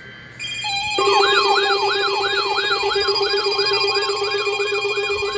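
Electronic emergency-alert siren tones: several steady tones come on, then about a second in a siren begins sweeping up and down about three times a second over them, loud and continuous.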